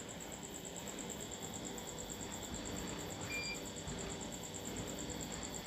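Faint background noise with a steady, evenly pulsing high-pitched tone, and a brief faint beep about three seconds in.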